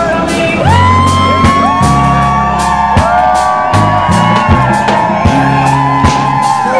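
Music with a steady beat, about three beats a second, over held bass notes that change every second or so, with high tones that slide up and then hold.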